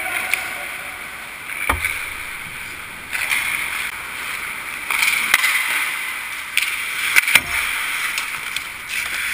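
Ice hockey skate blades scraping and carving on the ice in bursts, with sharp clacks of sticks and puck. Two of the impacts, about two seconds in and near the end, land with a dull thud through the goal frame.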